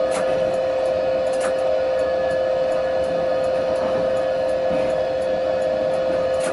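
Inside the driver's cab of a Tatra T6A5 tram creeping slowly along: a steady, even whine from the tram's equipment, with faint sharp ticks about twice a second.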